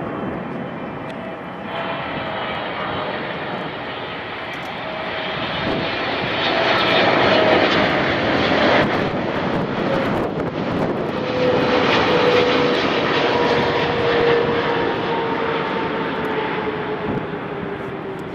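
Jet engines of a Boeing 777-300ER, its twin GE90 turbofans, running as the airliner comes in to land. The sound swells to its loudest in the middle as the jet passes, with a whine that slowly drops in pitch, then fades.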